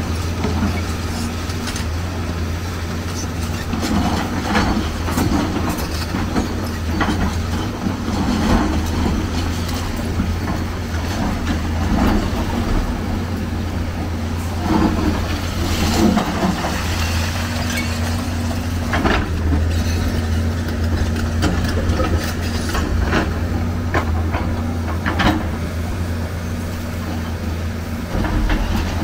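Hyundai crawler excavator's diesel engine running steadily under load, with irregular knocks and crashes of concrete and brick rubble as the building is broken down.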